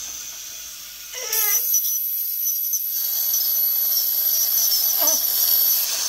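Ultrasonic dental scaler working on the teeth during a cleaning: a steady high whine that starts about a second in and stops just before the end, over the hiss of water spray and suction. The patient makes a short vocal sound about a second in and again near the end.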